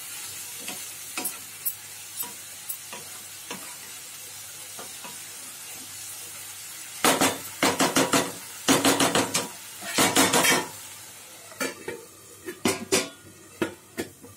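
Chopped mustard greens sizzling in a kadhai while a wooden spatula stirs them, tapping the pan now and then, with a spell of loud scraping and clattering from about seven to eleven seconds in. The sizzle then dies down, and a few clinks come near the end as a steel lid is set on the pan.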